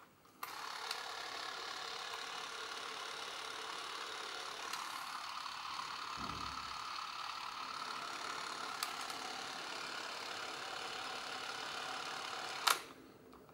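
Bell & Howell T30XL Super 8 camera's film-drive motor running with a steady whir, switched on with a click and stopped with a sharp click about twelve seconds later.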